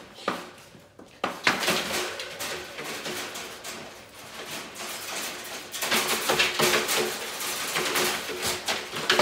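Wire dog crate rattling and clanking as an excited Labrador moves about inside it and the crate door is opened. The metal clatter starts about a second in and gets louder near the end.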